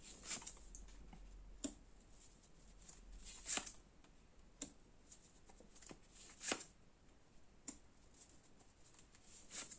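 Tarot cards being handled and laid out: a few faint, scattered slaps and swishes of cards, the loudest about three and a half and six and a half seconds in.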